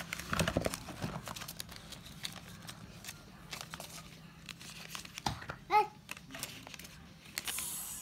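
Rustling and light taps of a small cardboard box and paper being picked up and turned over in the hands. A brief high chirp a little before six seconds, and a longer hissing rustle near the end.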